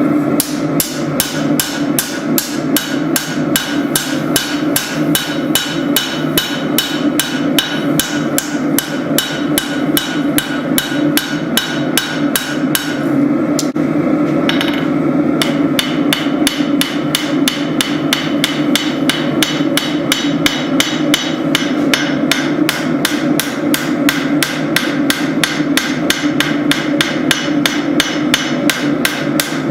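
Hand hammer striking hot spring steel on an anvil in steady forging blows, about three a second, with a brief pause about halfway through. A steady low hum runs underneath.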